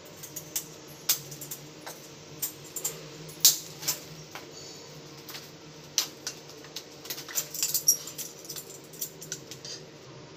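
Irregular sharp clicks and taps of plastic pipe fittings and bits of debris being handled in a hole in the wall, over a faint steady hum.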